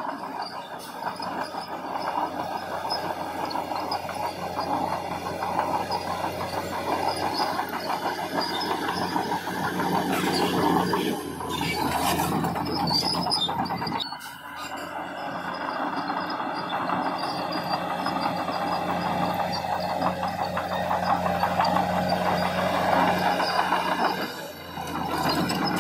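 Heavy diesel earthmoving machinery running at the work site: a steady engine drone with rattling and clanking. It eases off briefly a few times.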